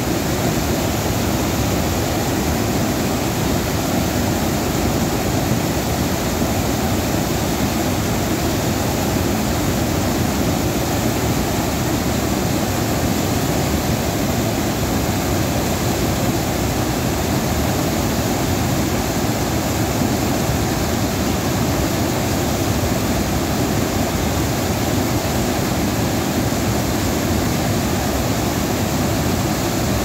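Floodwater pouring over a full tank's overflow weir and churning into white foam below: a loud, steady rush of water.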